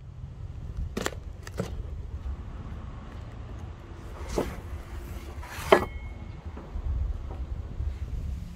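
Objects set down and handled on a weathered wooden plank bench: a few light knocks from a cardboard parcel, then the loudest, a sharp clack with a brief metallic ring as a steel double-bit axe head is laid on the wood, over a steady low outdoor rumble.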